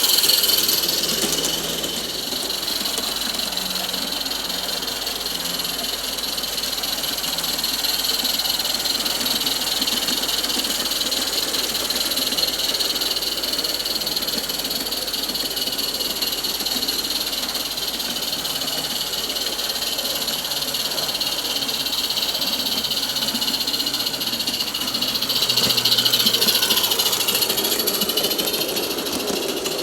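16mm-scale live steam model locomotive running, a steady high hiss of steam, growing louder for a few seconds near the end as it comes close.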